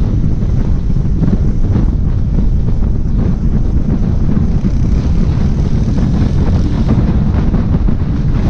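Wind buffeting the microphone while riding: a loud, steady low rumble that drowns out most other sound.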